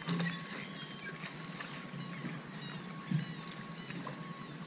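Faint, scattered bird calls: many short, falling chirps, with one brief knock about three seconds in.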